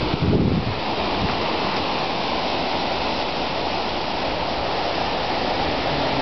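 Surf breaking on a rocky shore: a steady rushing wash of waves, with a brief low thump about half a second in.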